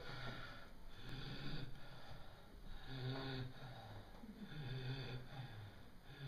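A low male voice humming a few held notes, each about half a second to a second long, with short pauses between them.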